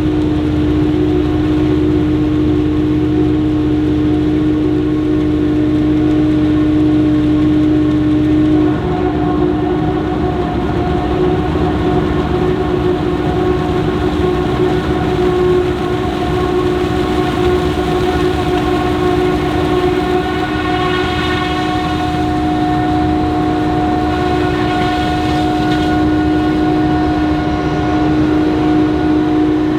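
Krone BiG X 780 self-propelled forage harvester running while it chops maize: a loud, steady mechanical drone with a sustained high whine over it. The sound shifts abruptly about nine seconds in, where the low rumble drops away and the whine changes pitch.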